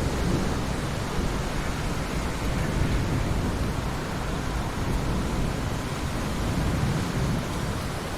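Heavy rain falling in a forest: a steady, even hiss with a deep low rumble underneath that eases slightly near the end.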